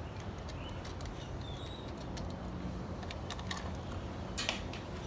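Light, scattered clicks and taps of a small plastic plug-in thermostat and its screw being handled and worked loose, with a small cluster of clicks near the end, over a steady low background rumble.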